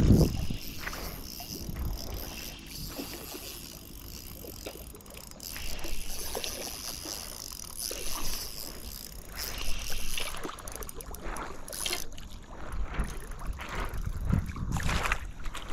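A hooked bass thrashing and splashing in shallow river water while it is reeled in on a spinning reel, with a burst of loud splashing near the end as the fish is drawn into the shallows.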